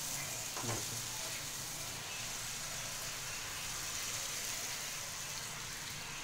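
Steady sizzle of spiced raw-mango masala in a hot frying pan while a bowl of water is poured in.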